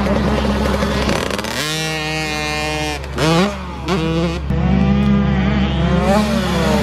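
Dirt bike engine revving up and down as it is ridden round a motocross track, its pitch climbing and dropping through throttle changes, with quick sharp revs around the middle. A steady low hum runs underneath.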